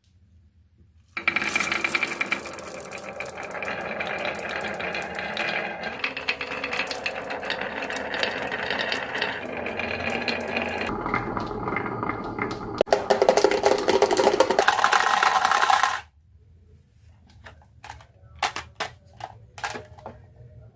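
Many marbles rolling and clattering down a marble-run track: a dense, continuous rattle that starts about a second in, grows loudest near its end and stops suddenly, followed by scattered clicks of a few marbles.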